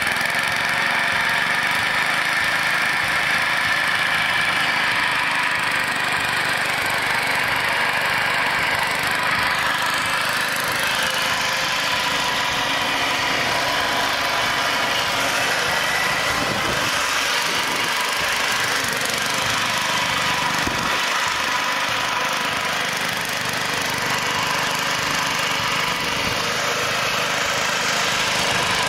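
The restored Mott hammer knife (flail) mower's Clinton gas engine running steadily, with no change in speed.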